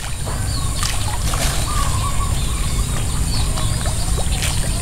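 Rural outdoor ambience: a steady low rumble under birds chirping and a constant high insect drone, with a few short clicks.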